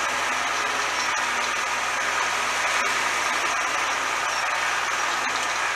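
New Holland TVT 145 tractor's six-cylinder diesel engine running steadily.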